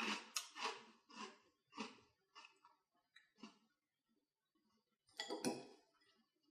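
Mouthful of Caramel Crunch cereal in milk being chewed: a run of crunches about two a second that fade over the first few seconds, then a louder crunch about five seconds in.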